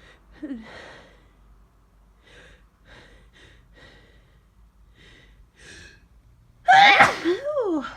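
A person with a cold or flu takes several short catching breaths, then nearly seven seconds in lets out one loud voiced sneeze that trails off in a falling voice.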